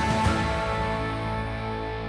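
Closing theme music: a final chord struck just after the start rings on and slowly fades.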